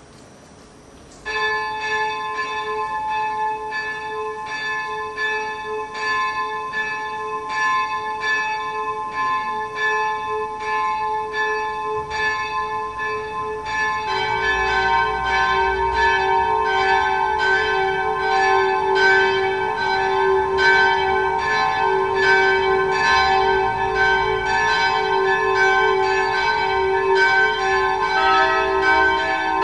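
Church bells of the full peal starting up one after another. A first bell begins striking about a second in, roughly once a second, a second bell joins about halfway through, and a third comes in near the end, their strikes overlapping.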